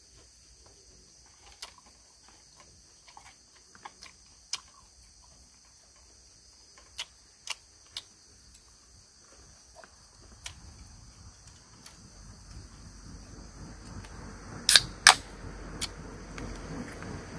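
Scattered light clicks and taps of wooden chopsticks and metal tongs against a frying pan of pork on a camp stove, with two sharp, much louder clicks about three seconds before the end. A low rushing noise grows louder through the second half.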